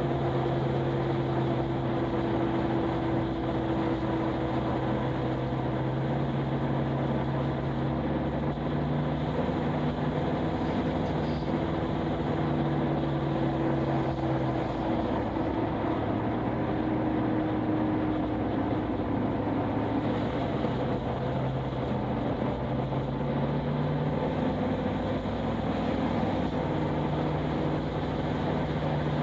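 Car engine and exhaust droning steadily at cruising speed, heard from inside the cabin, with road and tyre noise underneath. The engine note drops about halfway through and climbs back up near the end as the revs ease off and pick up again.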